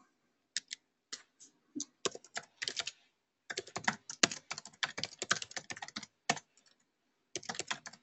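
Typing on a computer keyboard: quick, irregular keystroke clicks, with a brief pause a little before the end.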